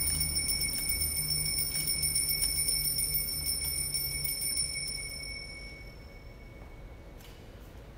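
Altar bells rung at the elevation of the consecrated host: a steady, bright ringing over a low hum that fades away about six seconds in.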